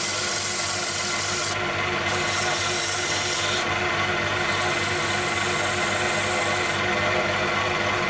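Wood lathe on a variable-frequency drive running with a steady hum while sandpaper is held against the spinning wood, making a hissing rub in three passes that ends about two-thirds of the way through.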